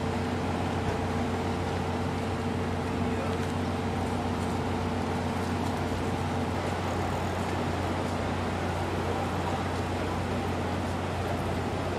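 Steady low drone of heavy engines and equipment running, over a constant outdoor noise bed. A faint held hum in it stops about halfway through.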